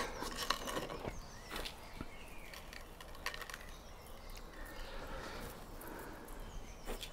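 Faint small ticks and rustles of coarse salt being sprinkled by hand onto a raw beef joint and pressed into the meat on a wooden chopping board, with faint birdsong in the background.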